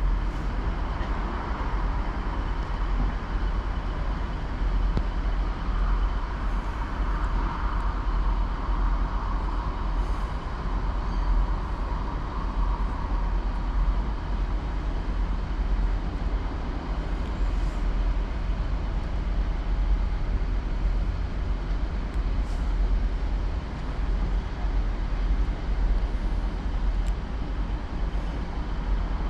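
Steady low engine rumble with a faint constant whine, typical of a diesel engine running.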